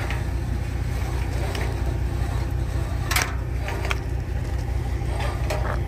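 Diesel truck engine idling steadily, with a couple of short clanks over it, about three seconds in and near the end.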